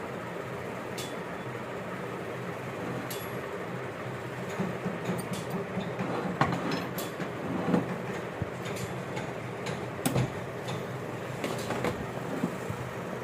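A steady mechanical hum from a running machine, with scattered sharp metallic clicks and knocks, the loudest about 6, 8 and 10 seconds in.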